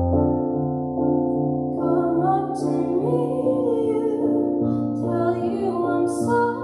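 School choir singing over sustained keyboard chords, the voices holding long wavering notes.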